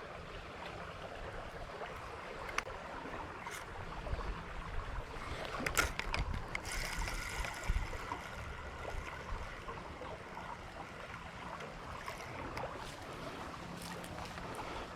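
Creek water running steadily, with a few faint clicks and rustles over it.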